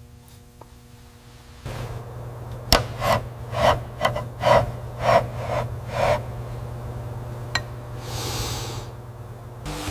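Seven rhythmic rubbing strokes, about two a second, against a steady machine hum that starts a couple of seconds in. A sharp click follows, then a short hiss near the end.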